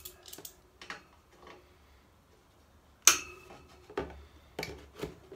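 Scattered metallic clicks and clinks from an adjustable spanner being handled on a radiator valve, with one sharp clink about three seconds in.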